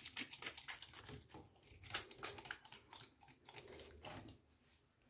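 Faint, irregular scratchy rubbing and small clicks of an alcohol-dampened rag being scrubbed over a dirty circuit board to clean it.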